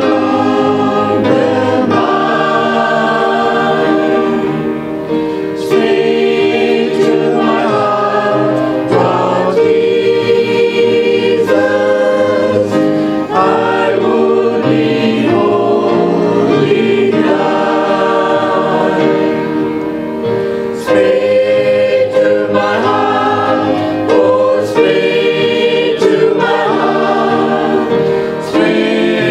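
Mixed choir of men and women singing a hymn together, phrase by phrase, with long held notes and short breaths between phrases.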